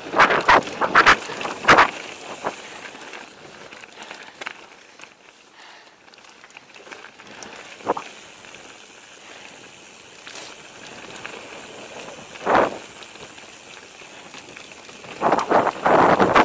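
Mountain bike rolling over a rough forest trail, rattling and knocking over bumps: a flurry of sharp knocks at the start, a quieter rolling stretch in the middle with a few single knocks, then heavy rattling again near the end.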